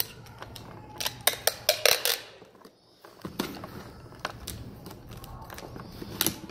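Handheld packing-tape dispenser being worked on a cardboard box: a series of sharp clicks and taps, with a few brief rasps as tape is pulled off the roll.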